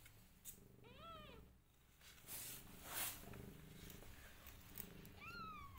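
Mother cat purring steadily while her newborn kittens nurse, with two short high-pitched kitten mews that rise and fall, one about a second in and one near the end, and a brief rustle about halfway.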